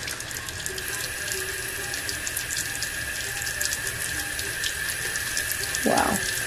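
Bathroom tap running into a sink with a steady splash. Over it, a makeup brush is scrubbed on a ridged silicone cleaning mat, making a fine, quick scratchy ticking.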